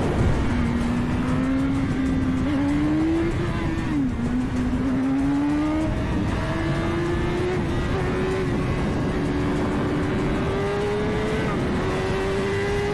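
BMW S1000RR inline-four engine pulling hard under full acceleration over heavy wind rush. Its pitch climbs, drops at an upshift about four seconds in, then keeps rising slowly in the higher gear.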